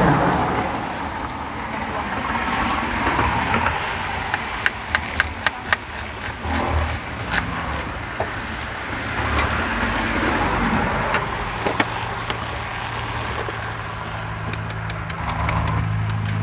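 A car engine running close by amid road traffic, its steady low hum growing stronger near the end. A quick run of about five sharp taps comes about five seconds in, with a few more scattered taps later.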